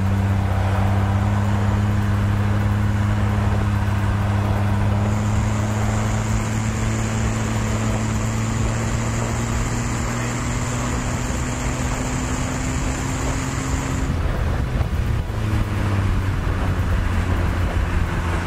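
BMW 330Ci's inline-six engine pulling under load on a track, its pitch climbing slowly for about fourteen seconds, then dropping suddenly and running on lower. Wind and road noise fill the open-top cabin.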